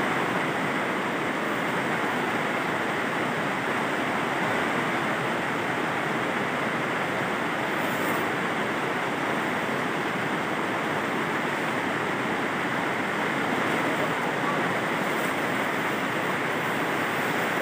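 Rain falling on a plastic-film greenhouse roof, a steady even hiss.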